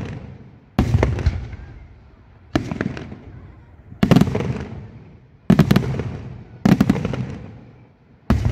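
Daylight fireworks: aerial shells bursting overhead in a steady series of loud reports, six of them about every second and a half. Each is a cluster of sharp cracks followed by a long rolling echo.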